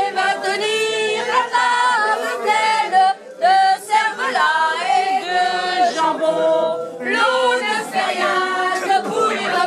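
A small group of women singing together, unaccompanied.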